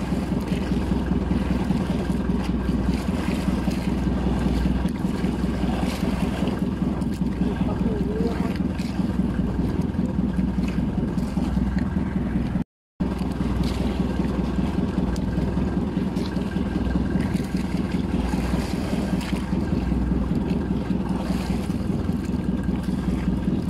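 Engine of an outrigger fishing boat running steadily, a constant low hum, with wind on the microphone.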